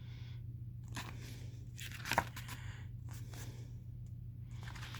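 Paper rustling as the glossy pages of a K-pop album photobook are handled and turned, a few short rustles with the loudest about two seconds in, over a steady low electrical hum.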